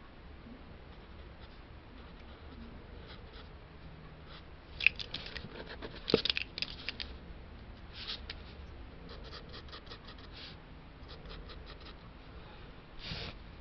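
Pencil strokes scratching on sketchbook paper, in short runs of quick strokes. The loudest, densest run comes about five to seven seconds in, with lighter runs after it.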